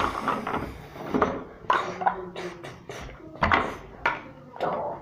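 Large hollow plastic toy building blocks knocking and clattering together as they are handled and set down, in a series of sharp irregular knocks.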